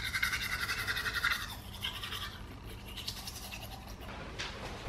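A toothbrush scrubbing teeth with tooth powder: a fast back-and-forth rasp, strongest in the first second and a half, then in a few shorter bursts.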